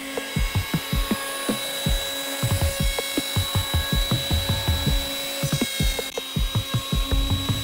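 Electric hand planer running and shaving the surface of a wooden beam, with a steady high whine, under a fast run of low thumps.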